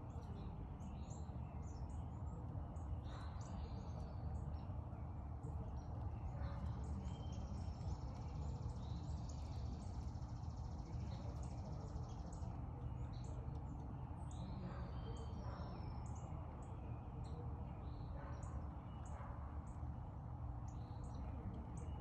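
Songbirds chirping and calling over a steady low background rumble: many short high chirps, a few slurred whistled notes, and a longer high trill lasting a few seconds near the middle.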